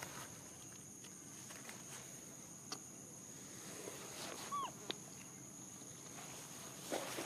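A single short squeaking animal call, rising then falling in pitch, about halfway through, over a steady high-pitched hum and faint scattered clicks and rustles.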